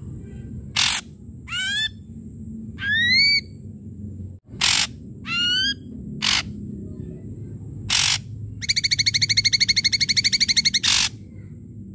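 Ashy drongo singing: short upward-sliding whistled notes mixed with harsh rasping calls, then a fast rattling trill of about a dozen notes a second that lasts around two seconds near the end.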